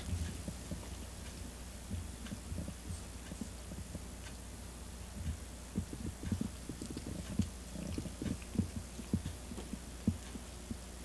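A domestic cat purring, a low steady rumble, with soft irregular low thumps that come thicker in the second half.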